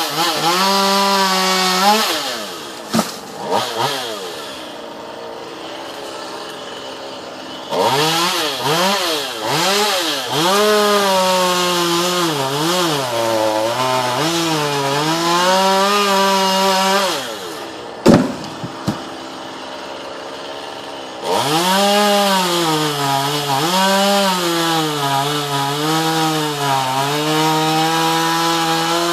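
Chainsaw cutting wood: the engine is run up to full speed in three bursts, the longest near the middle, its pitch sagging and recovering as the chain bites into the wood. Between cuts it drops back to a quieter idle.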